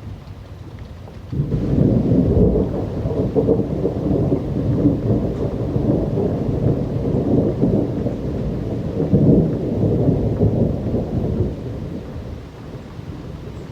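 A long roll of thunder breaks in suddenly about a second in and rumbles low for about ten seconds before easing off, over steady rainfall.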